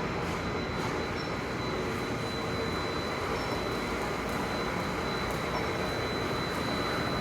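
Lathe running: steady machine noise with a thin, high, constant whine over it.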